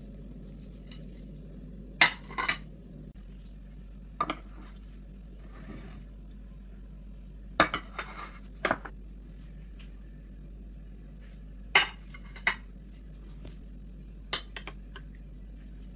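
Plates being set down on a stone countertop, clinking sharply in little clusters several times a few seconds apart, over a low steady hum.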